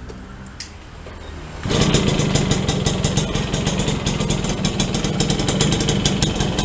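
Two-stroke single-cylinder engine of a Yamaha V75 moped, bored up to 72cc, running at idle just after being started on a freshly fitted piston. It gets louder just under two seconds in, with rapid, even firing, and runs fairly smoothly.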